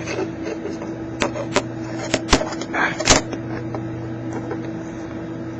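Handling of the opened plastic casing of a small USB wireless adapter: about half a dozen sharp clicks and knocks in the first three and a half seconds, the loudest just after three seconds in, over a steady electrical hum.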